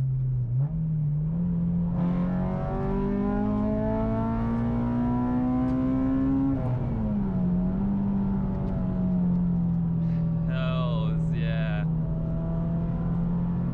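Acura RSX Type S's K20Z1 four-cylinder engine, breathing through an aftermarket header and Injen exhaust, pulling under acceleration: the revs climb steadily for about four seconds, drop sharply at an upshift of the manual gearbox, then hold steady at cruising revs.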